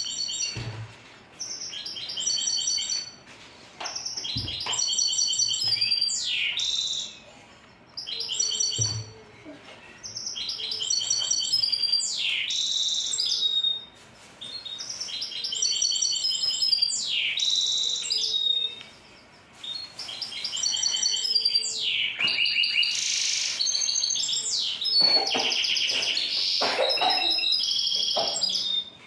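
Goldfinch-canary hybrid (bandouk) singing in phrases of a few seconds each, separated by short pauses. The phrases are built of fast rattling trills and quick repeated high notes, with quick downward-sweeping whistles.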